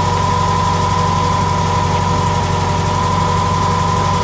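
1976 Volkswagen Fusca (Beetle) air-cooled flat-four idling steadily, with a constant high whine over the engine note. The whine comes from the alternator bearing, which the owner says has started growling again and needs replacing.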